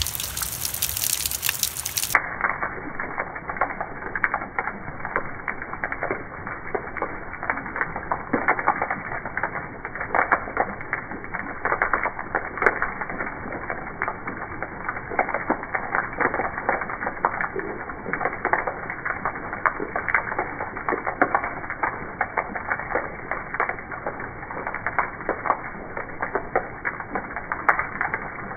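Rain falling on weathered wooden steps, a dense run of small drop hits over a steady hiss. About two seconds in the audio switches to slow-motion playback, so the hits turn deeper and duller.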